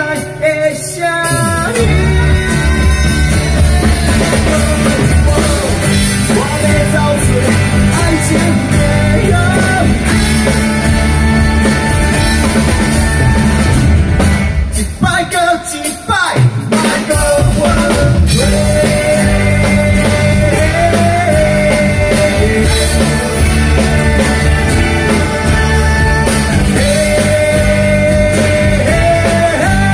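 A live rock band playing through a PA, with electric and acoustic guitars, bass, drums and a lead vocal. For about two seconds midway the bass falls away and the sound thins, then the full band comes back in.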